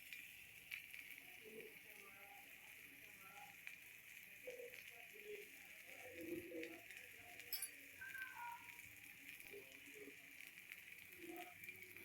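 Faint, steady sizzling of food frying in a pan, with a single sharp click about halfway through.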